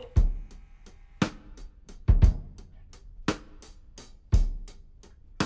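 Intro music: a sparse drum-kit beat, bass drum and snare strikes alternating about once a second, with faint cymbal ticks between them.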